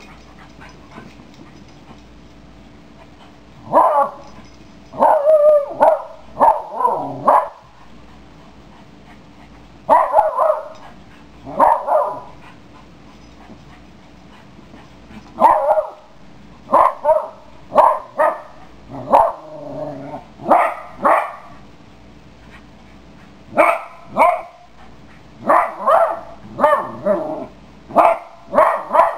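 Chuggle puppy (a chihuahua, pug and beagle mix) barking in volleys of short barks with pauses of a few seconds between them, starting about four seconds in.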